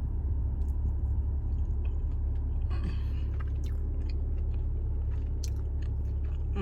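Chewing and small mouth clicks of someone eating a chewy, gummy rice cake, over a steady low hum.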